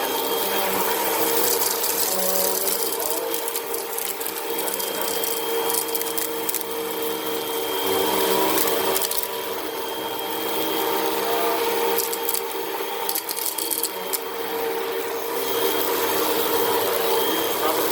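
Vacuum cleaner running steadily with a constant motor whine while it sucks sand out of a rug. Gritty crackling comes and goes as the sand rattles through.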